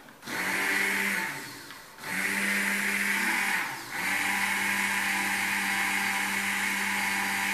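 Electric stick blender running in a large stainless pot of white sauce, switched on in three runs: a short one, a slightly longer one, then a long steady run near the end. It is blending roux into hot milk as the béchamel thickens on the heat.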